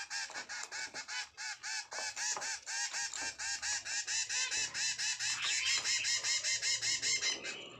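Caged zebra finches calling nonstop, a rapid run of short nasal beeping calls, several a second, growing louder in the second half.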